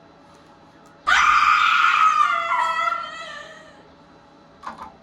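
A woman's long, high-pitched scream of frustration, starting suddenly about a second in, lasting about two and a half seconds and dropping in pitch toward its end.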